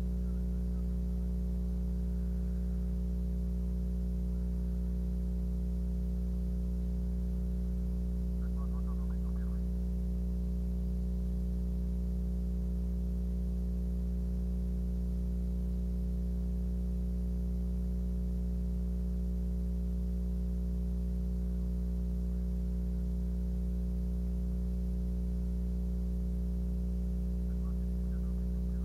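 Steady low electrical hum made of several constant tones, with no change in level.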